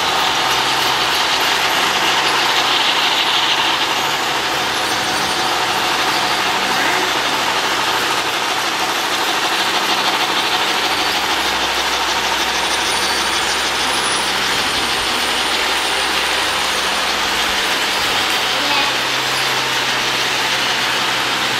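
Model trains running: a steady mechanical rumble of locomotive motors and wheels on the track, with a steady low engine-like hum throughout.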